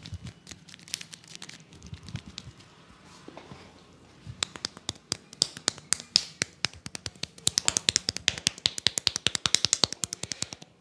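A barber's hands slapping and tapping in a percussive massage. Softer scattered taps give way about four seconds in to a fast run of sharp slaps that speeds up to about eight a second.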